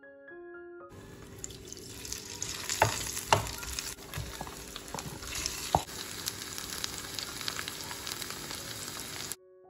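Spice-battered ivy gourd strips sizzling as they fry in coconut oil in a nonstick pan. The sizzle starts about a second in and holds steady, with a few sharp clicks along the way.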